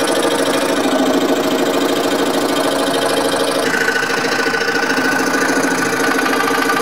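Scroll saw running and cutting quarter-inch Baltic birch plywood: a steady, rapid reciprocating buzz of the blade stroking through the wood. About halfway through, a higher whine joins in and carries on.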